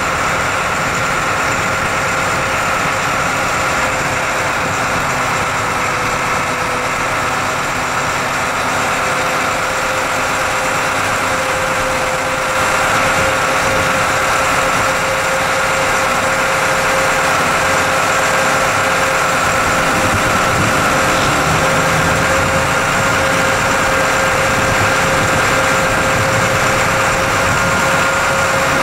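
McKeen motor car No. 22 running along the track, heard from aboard: a steady engine drone with a steady whine over it, a little louder from about twelve seconds in.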